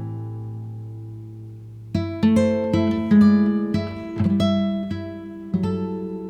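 Background music: acoustic guitar played slowly, a chord ringing out and fading, then a run of plucked notes from about two seconds in.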